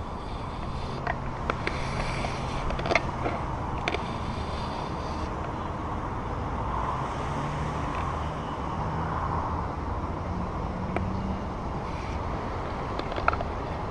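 Steady outdoor background noise with a low engine hum that rises and falls in pitch. A few sharp clicks come in the first few seconds and once near the end.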